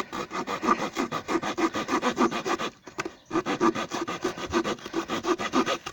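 Victorinox Huntsman pocketknife saw blade cutting through a wooden broom handle in quick back-and-forth rasping strokes, several a second, with a brief pause about three seconds in. The blade drags a little in the wood.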